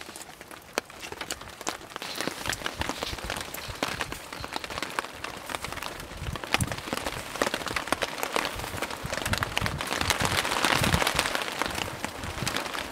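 Drops pattering on a tarp as light rain tails off: many small sharp ticks over a steady hiss that swells about ten seconds in.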